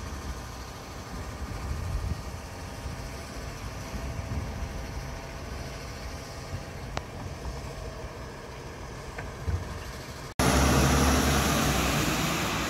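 Diesel engine of a Labrie Expert 2000 side-loading garbage truck running steadily at idle. About ten seconds in, the sound cuts abruptly to a louder, even rushing noise.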